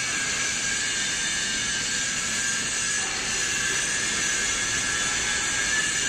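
Hydraulic power unit of a 160-ton scrap metal baler running: electric motor and hydraulic pump giving a steady high hiss with a faint whine.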